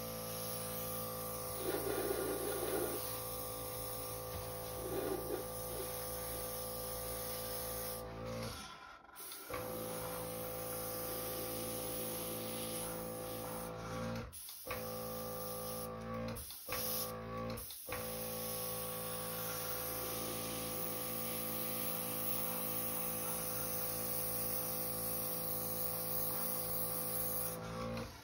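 Airbrush compressor running with a steady hum, with the hiss of the airbrush spraying. The sound drops out briefly about four times.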